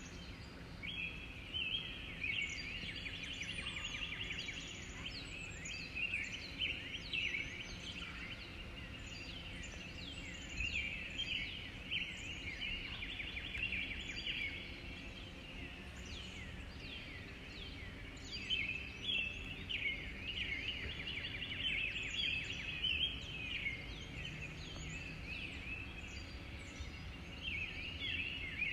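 Songbirds singing outdoors, several birds repeating rapid trilled phrases every few seconds with short quick whistled notes between them, over a steady low background hiss.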